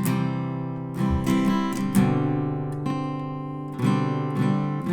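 Acoustic guitar strumming chords, each strum ringing on, with a new strum roughly every second.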